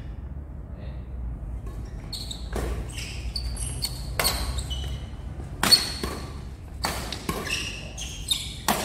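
Badminton rally: rackets strike the shuttlecock about six times, sharp pops with a little echo from the hall, the loudest a little past halfway. Short high squeaks of court shoes on the floor come between the hits.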